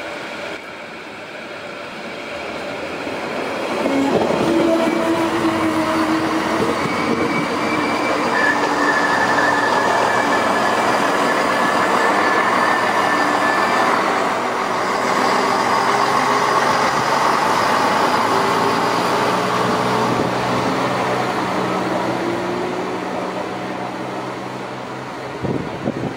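Class 642 Desiro diesel railcar pulling away under power, its engine note and transmission whine slowly rising in pitch as it gathers speed. It grows louder over the first few seconds, holds, then fades a little, with a run of wheel clatter over rail joints near the end.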